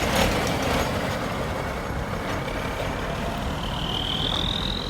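Heavy truck or earth-moving machine running steadily, with a thin high whine rising slowly near the end.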